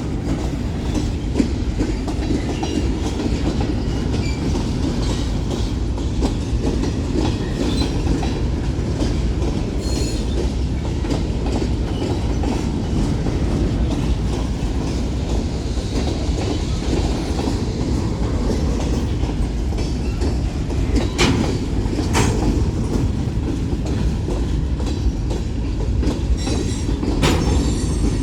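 BNSF mixed freight train's cars rolling past with a steady rolling noise and wheels clattering over the rail joints, with a few sharp clanks near the end.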